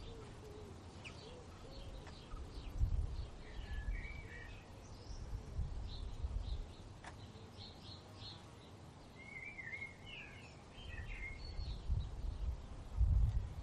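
Small birds chirping and twittering on and off in the background, in short high notes and wavering warbles. A few low, dull thuds, the loudest sounds, come about three seconds in and again near the end.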